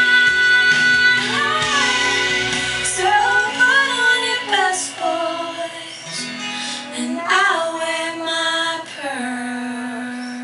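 A recorded country-pop song: a woman's sung vocal with held, bending notes over guitar, with a small child singing along. It grows quieter near the end.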